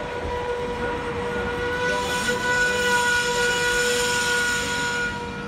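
Brakes of a double-deck electric passenger train squealing as it slows to a stop at the platform: a steady high-pitched squeal on several tones at once, growing louder about two seconds in and dying away near the end, over the rumble of the train.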